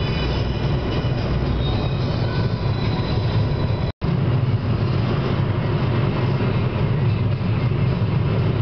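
Steady low road and engine rumble of a car at highway speed, heard from inside the cabin. The sound drops out for an instant about four seconds in.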